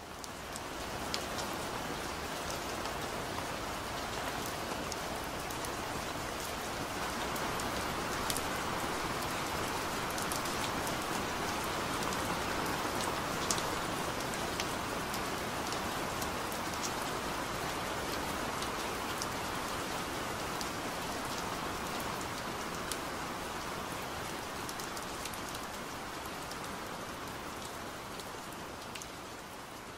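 Steady rain falling, an even hiss with scattered drop ticks that eases off slightly near the end.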